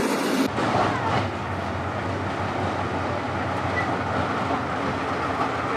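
Soviet T-55 tank on the move: its V-55 V12 diesel engine running steadily under the clatter of its steel tracks. The sound changes abruptly about half a second in, where the footage cuts to the tank driving.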